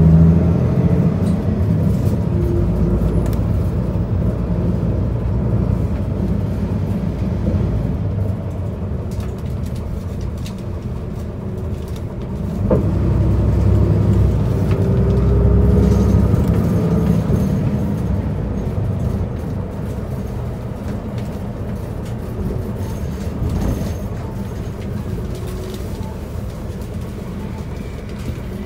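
Isuzu Erga city bus under way, heard from inside the cabin: steady engine and road noise. About twelve seconds in, the engine note rises and grows louder, then gradually eases off.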